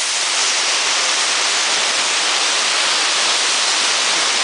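Steady rush of falling water, an even hiss that does not change.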